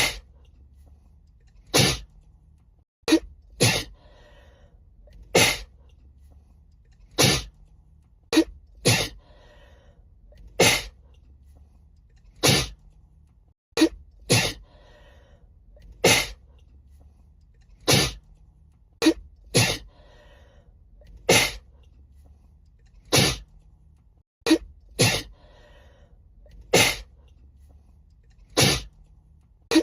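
A woman sneezing over and over in a long fit: sharp, loud sneezes every one and a half to two seconds, some in quick pairs. A faint low hum sits between them. The same run of sneezes repeats about every ten to eleven seconds, with a brief dropout at each repeat.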